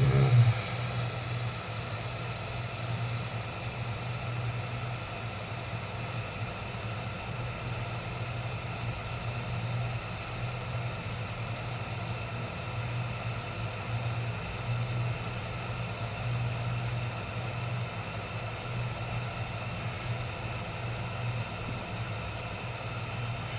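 Hot-air rework blower running steadily, a constant low hum with airy hiss. A short knock sounds right at the start.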